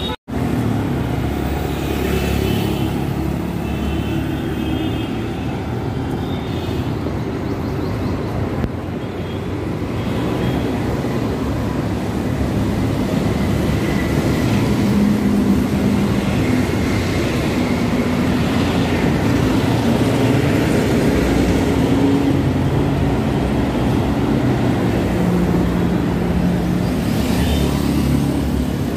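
City street traffic: cars and motorcycles passing with steady engine and tyre noise, growing a little louder in the second half. The sound drops out for an instant just after the start.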